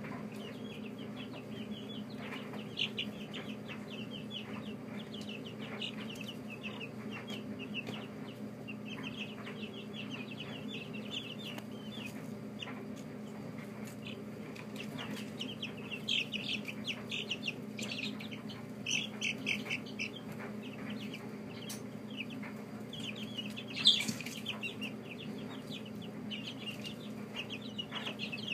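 A brood of baby chicks peeping continuously, many short high cheeps overlapping, with one louder cheep about four-fifths of the way through. A steady low hum runs underneath.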